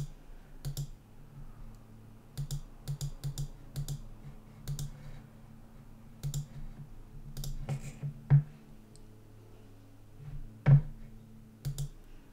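Irregular clicking at a computer as the simulator is operated, about a dozen short clicks with two louder knocks, one past the 8-second mark and one near 11 seconds. A faint steady low hum lies underneath.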